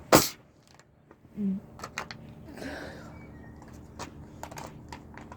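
Pumped-up container of Kool-Aid bursting with a single sharp, loud bang like a gunshot, then small clicks and rustling.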